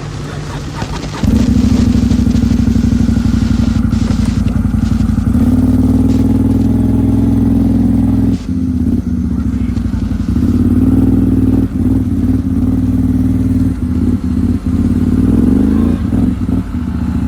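Excavator diesel engine running hard under load, jumping up about a second in, with a few brief dips and a rise in pitch near the end.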